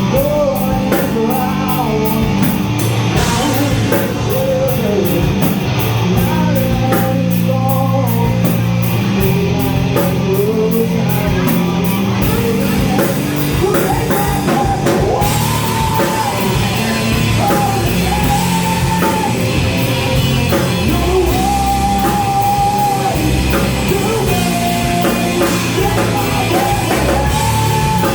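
Live rock band playing loud, with electric guitar, bass and drums under a sung melody line. A steady high cymbal beat drops out about twelve seconds in.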